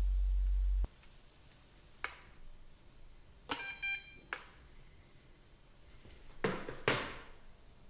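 A loud low hum that cuts off suddenly under a second in, then a click, two short electronic beeps in quick succession about three and a half seconds in, and two knocks near the end.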